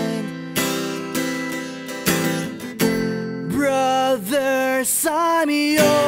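Background music: an acoustic guitar strumming chords, with a voice singing from about halfway through.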